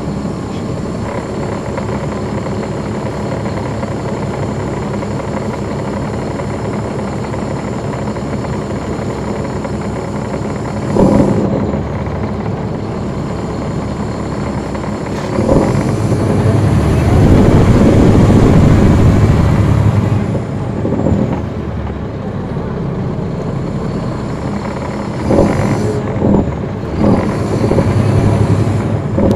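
Caterpillar C13 ACERT diesel engine of a NABI transit bus, heard on board with its engine fans off. It runs steadily, then gets louder for several seconds about halfway through. There is a short loud burst about a third of the way in and several shorter bursts near the end.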